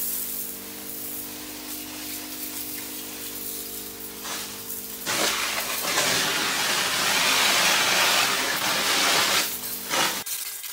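PETRA battery-powered cart sprayer's electric pump humming steadily while water hisses from the hose nozzle and spatters on the shelving. The spray gets louder from about five seconds in, and the pump hum stops just before the end.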